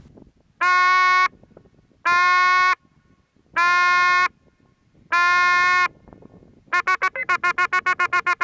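Hunting horn blown as a hunt signal: four long held notes at the same pitch, then a quick run of about a dozen short staccato notes.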